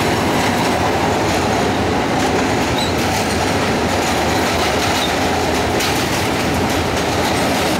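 A New York City subway J train, an R179 car, running steadily along elevated track, heard from inside the car: a continuous, even noise of wheels on rail and running gear.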